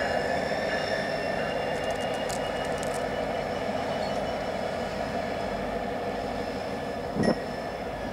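A pair of diesel locomotives rolls slowly through the yard, engines running, with steady high-pitched wheel squeal. A single sharp clank sounds a little after seven seconds.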